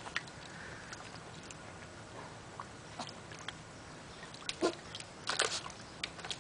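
Schipperke dog pawing and sniffing in a shallow plastic wading pool of water: scattered light splashes and taps, the loudest cluster about five seconds in.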